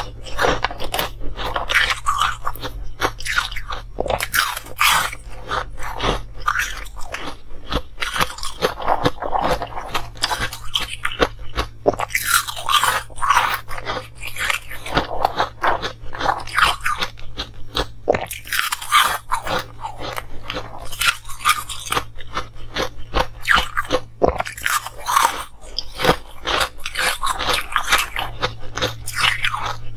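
Crunching of frosty coloured ice cubes being bitten and chewed, close to the microphone, in a dense, irregular run of crunches.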